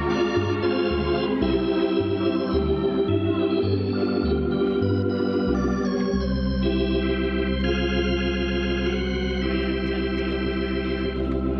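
Organ music: sustained chords that change every second or so, over a bass line that steps in short notes and then settles into a long held low note about halfway through.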